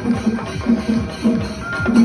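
Chenda drum ensemble playing a steady, fast rhythm of stick strokes on the drums, about three strong beats a second.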